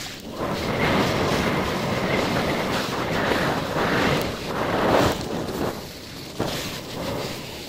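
Wind rushing over the microphone together with a sandboard's base hissing and rumbling over dune sand at speed, swelling and easing, quieter near the end.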